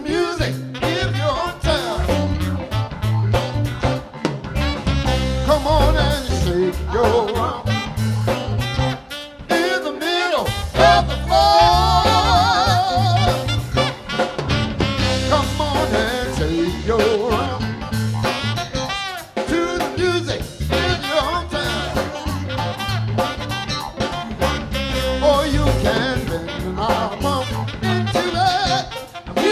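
Live band playing: saxophone over drum kit, electric guitar and bass, with singing.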